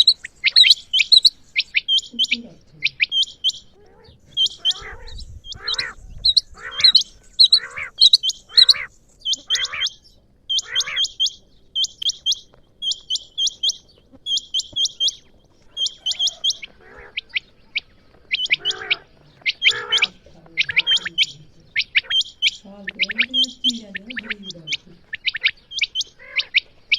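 Female quail calling: quick runs of short, high chirps repeated throughout, with a lower, rougher call repeated beneath them in two stretches, about a quarter of the way in and again past the middle.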